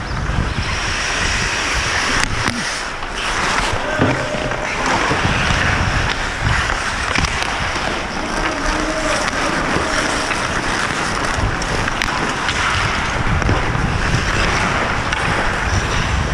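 Wind rushing over a helmet camera's microphone as the wearer skates, mixed with skate blades scraping the ice. A few sharp clicks, such as around two, four and twelve seconds in, fit sticks hitting the puck or each other.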